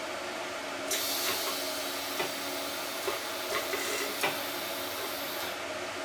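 Electric welding arc hissing and crackling through one weld of about four and a half seconds. It starts about a second in, with a few sharp pops along the way, and cuts off suddenly when the arc is broken.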